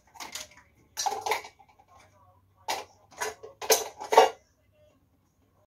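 Ceramic plates and bowls clinking and clattering against each other as they are handled and stacked. A handful of short knocks come in the first four seconds, then stop.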